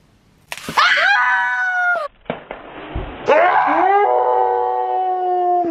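Two long, high-pitched human screams: one starting about half a second in and lasting over a second, a second one starting about three seconds in and held steady for over two seconds, with a short hiss of noise between them.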